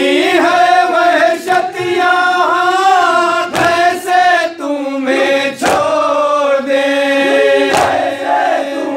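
Men chanting an Urdu noha lament in unison, with a lead male voice holding long, wavering notes over the group. A sharp slap falls about every two seconds, the rhythm of hands striking chests in matam.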